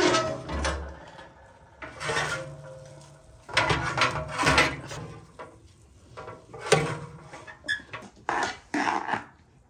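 Metal oven door of a stove clanking open and a metal baking tray of baked pastries scraping out of the oven, in a series of clanks and scrapes. Near the end, a serving spoon scrapes food from a metal pot.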